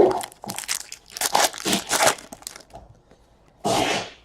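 Plastic crinkling and rustling as trading cards and their wrappers are handled, in irregular bursts of crackles, followed near the end by a short hiss.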